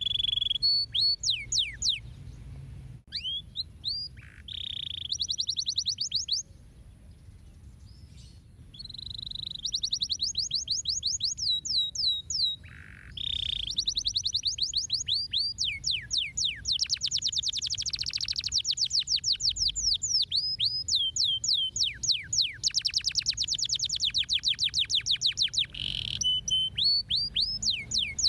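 Domestic canary singing: long rapid trills of repeated down-sweeping notes, phrase after phrase, with a brief quieter pause about seven seconds in.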